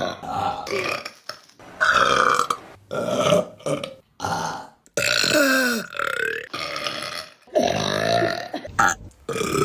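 A quick run of about eight women's burps, one after another with abrupt cuts between them. The longest, about halfway through, falls in pitch as it goes.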